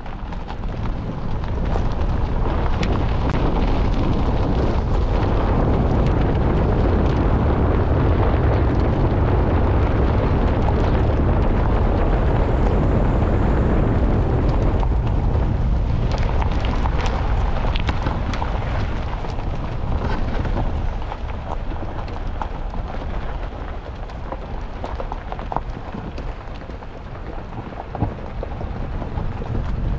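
A 4x4 driving on a gravel track: a loud, deep rumble of tyres and engine mixed with wind buffeting on the microphone, and loose stones crackling under the tyres. It eases a little about two-thirds of the way through, with one sharp knock near the end.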